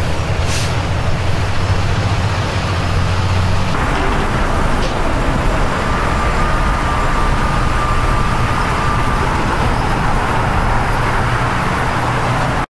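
Heavy freeway traffic of semi trucks and cars passing, a steady rush of tyres and engines with a deep truck-engine rumble. About four seconds in the rumble drops away, leaving a more even traffic noise.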